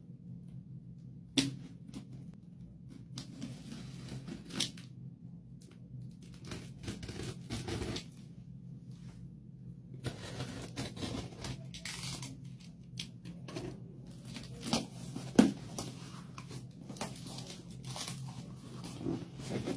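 Snap-off utility knife slitting packing tape and cardboard along the top of a box, with scratchy cutting strokes, taps and a few sharp clicks. Near the end the cardboard flaps are pulled open. A steady low hum runs underneath.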